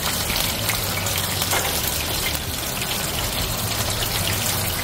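Battered shrimp deep-frying in hot oil: a steady sizzle with small crackles now and then.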